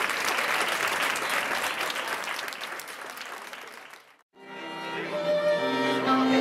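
Crowd applauding, fading out about four seconds in. After a brief gap, violin and keyboard start playing held notes.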